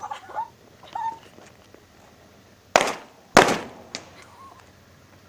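Two loud bangs about half a second apart, each with a short fading tail, as something bursts in a bonfire.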